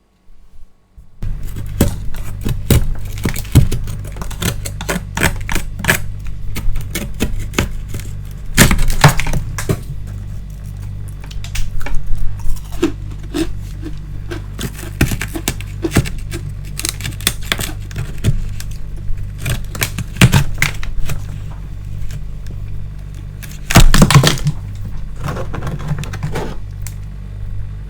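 Frost being scraped and chipped off the inside of a freezer: irregular scratching and sharp clicks of crunching ice, with louder bursts of chipping twice, over a steady low hum that starts about a second in.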